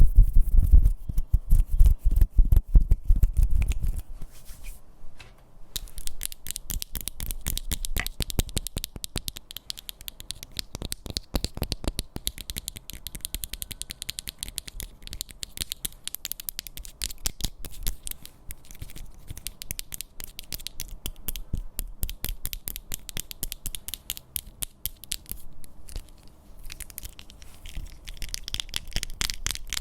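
ASMR tapping and scratching on objects close to the microphone, a fast run of taps. For the first few seconds the taps are heavy and deep, then after a brief pause they turn lighter and crisper, mixed with scratching.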